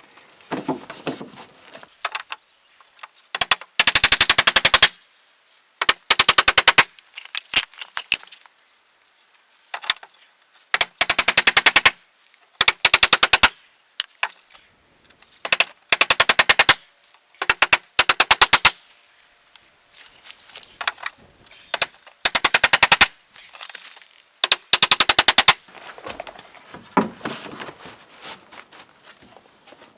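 Cordless impact driver driving screws into wooden boards: about a dozen bursts of rapid hammering, each about a second long, with short pauses between them.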